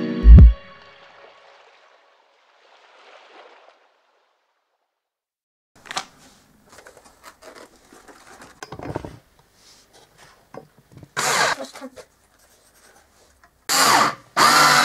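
A short, loud low thump right at the start, then small clicks and rustles of screws and parts being handled. Near the end a cordless drill driver whirs in short bursts as it drives a screw through a metal rail into a wooden bed rail.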